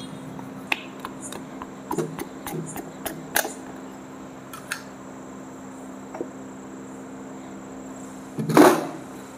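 Scattered light metallic clicks and knocks of tools and engine parts as pistons are fitted into the engine block, with a louder, longer clatter near the end, over a steady low hum.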